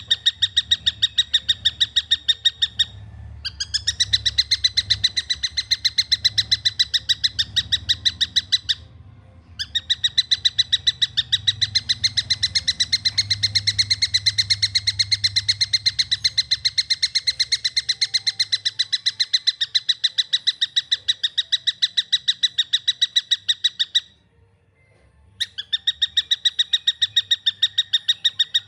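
Young tengkek buto, a kingfisher, calling: a fast, even run of sharp chirps, several a second, breaking off briefly about 3, 9 and 24 seconds in.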